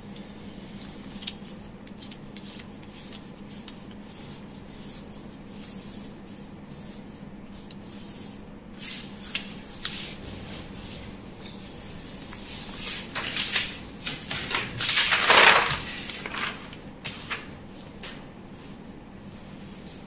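Pattern paper being handled: a felt-tip marker scratching along brown paper and the paper rustling and sliding on the table, loudest about two-thirds of the way through. A low steady hum runs underneath.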